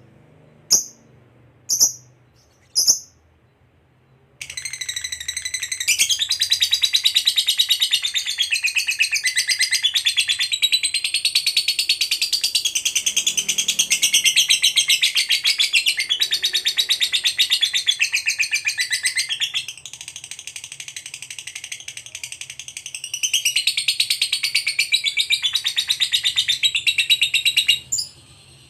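A lovebird gives a few short chirps, then about four seconds in breaks into one long, rapid chattering trill (the 'ngekek panjang' of a fighter lovebird). The trill runs unbroken for over twenty seconds, eases off for a few seconds past the middle, then cuts off suddenly near the end.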